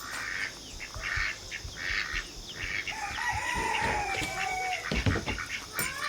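A rooster crows once, a long drawn-out call starting about three seconds in, among scattered rustling and a few dull thumps near the end.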